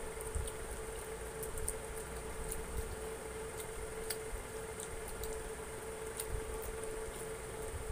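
Close-up eating sounds: chewing, lip smacks and sticky finger sounds from eating saucy fried chicken and rice by hand, heard as scattered small clicks over a steady hum.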